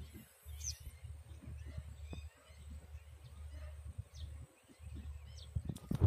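Open-air ambience: a fluttering low rumble on the phone's microphone, with a few short, high bird chirps scattered through. A loud knock on the microphone comes near the end.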